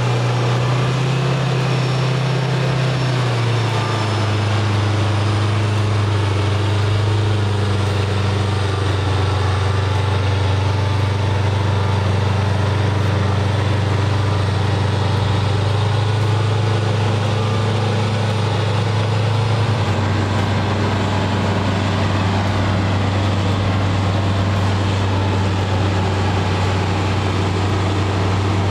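Heavy diesel engines running steadily at low revs as a mired off-road truck is pulled by an excavator. The pitch steps down about three seconds in and shifts again around twenty seconds in.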